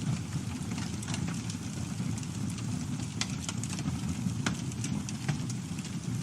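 Campfire burning: a steady low rumble from the flames with scattered sharp crackles and pops from the wood.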